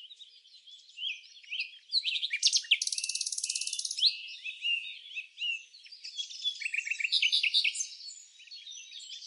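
Several songbirds chirping and singing over one another in a dense chorus, with a fast, even trill from about three to four seconds in. Only the high pitches are there; the low end is cut away.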